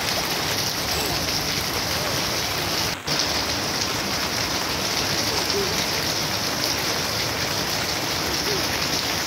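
Steady rain pouring onto wet ground, puddles and garden foliage, with a brief dropout about three seconds in.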